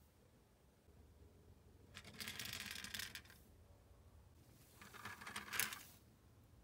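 Two short bursts of light plastic rattling and rustling, like handling noise: the first about two seconds in, the second about five seconds in with a sharper click near its end.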